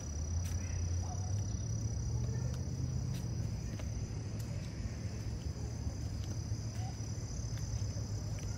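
Insects trilling outdoors in one steady, high, even tone, over a low steady rumble.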